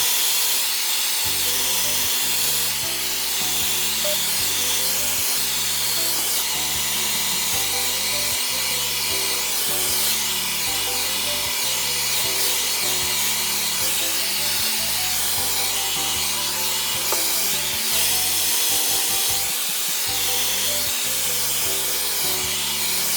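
Hair dryer running steadily, blowing air over hair as it is dried, over background music.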